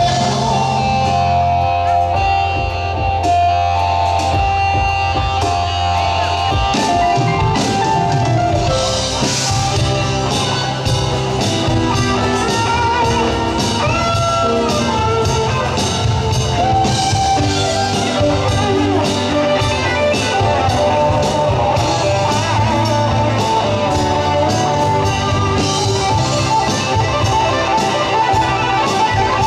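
Live rock band playing an instrumental passage: electric guitars over a steady drum kit beat.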